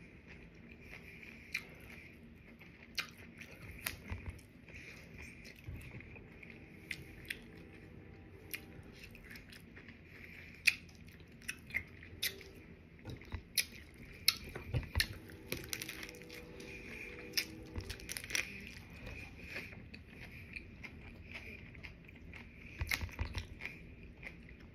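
Close-up chewing of a crunchy hard taco shell, with many sharp crackling crunches scattered throughout.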